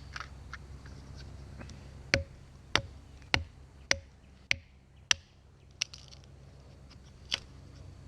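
Hatchet chopping into a pine stick to get at the fatwood: six sharp, evenly spaced strikes a little over half a second apart starting about two seconds in, then two lighter knocks. Small handling clicks come before the strikes.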